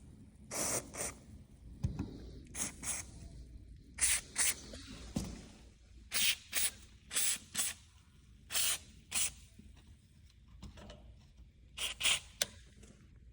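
Aerosol can of spray lubricant hissing in a series of short bursts, mostly in quick pairs, as garage door rollers and hinges are lubricated.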